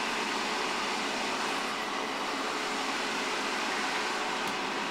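Steady whirring hiss of the Omega Super Charger compressor's cooling fan, with a faint low hum. The pump itself has shut off at its set fill pressure.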